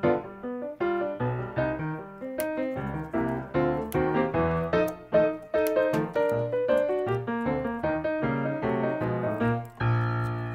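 Background piano music with a steady run of notes.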